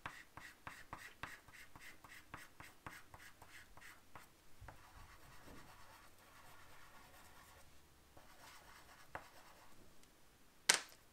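Chalk pastel stick scratching and rubbing on paper in quick short strokes, about five a second at first, then sparser. A single sharp click near the end.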